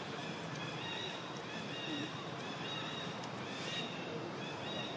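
Forest ambience: a steady background hiss with many short, high chirps repeating over and over.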